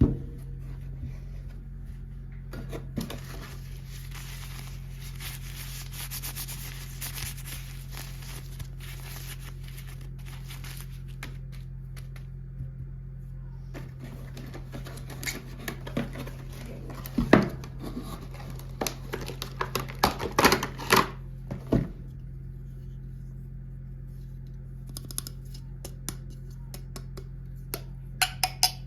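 Hands unboxing toys. For several seconds there is rustling and crinkling of plastic packaging, then scattered taps and clicks of small plastic toy pieces being handled, with a quicker run of light clicks near the end. A steady low hum sits under it all.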